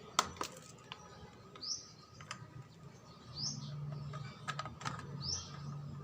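Sharp clicks and taps from handling the hand mixer's plastic housing and screwdriver while opening it, the loudest about a quarter second in. A bird chirps three times in the background, a short high falling note about every two seconds.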